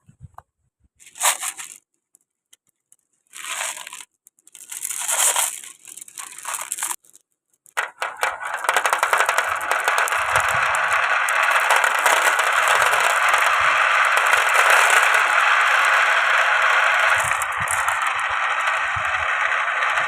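Glass marbles rolling and clattering down a wooden marble run: a few separate short clatters at first, then from about eight seconds in a dense, continuous rattle as many marbles roll down the track at once.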